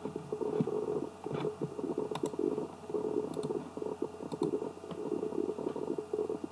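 A low, uneven rumbling noise in the background, with a few sharp clicks of a computer mouse and keyboard about two seconds in and again around three and four and a half seconds in, as the serial number is entered and submitted.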